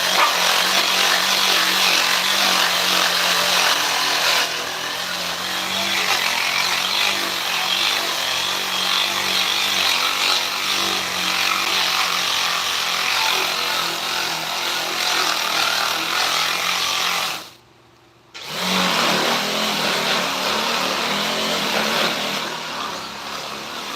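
Electric power tool working wood, running steadily, cutting out about seventeen seconds in and starting again a second later.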